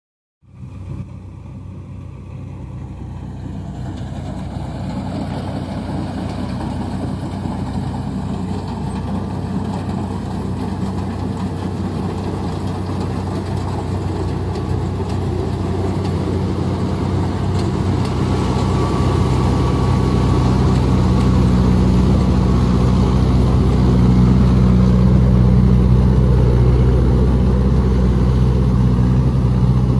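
Engine of a motorised rice thresher running steadily. It starts abruptly and grows gradually louder.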